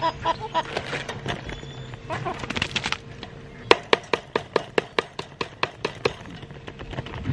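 Backyard hens clucking in short repeated calls at the start. A little over halfway through comes a run of sharp pecking taps, about four a second, lasting two to three seconds.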